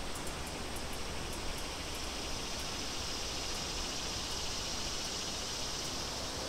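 Steady outdoor ambience: an even, unbroken hiss like wind and rustling, with a higher hissing band that grows stronger about halfway through.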